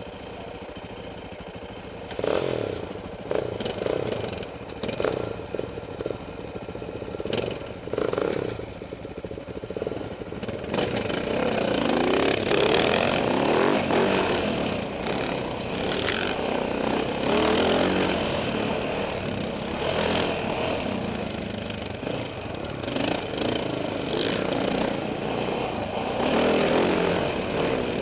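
Husaberg FE570 single-cylinder four-stroke dirt bike engine, heard from on the bike. It idles at first and is blipped several times from about two seconds in. From about ten seconds in it runs continuously and louder, the revs rising and falling as the bike is ridden along a tight wooded trail.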